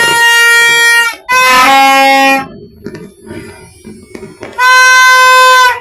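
Three loud, blaring horn blasts of about a second each. The second is lower and wavers in pitch.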